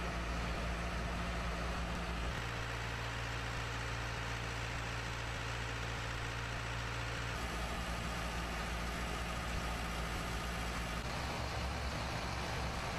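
Engine idling with a steady low hum, its tone shifting twice.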